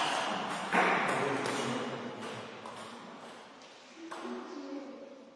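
Table tennis balls clicking off rubber paddles and tables, a string of sharp ticks echoing in a sports hall. A louder burst of noise comes about a second in and fades over the next few seconds, and brief voices come near the end.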